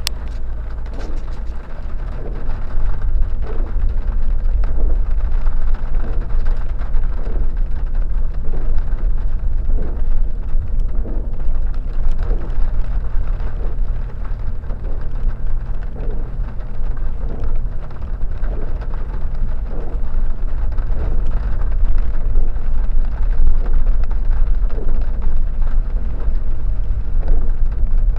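Off-road vehicle driving on a rough track, its engine and tyre noise buried under heavy wind rumble on the microphone.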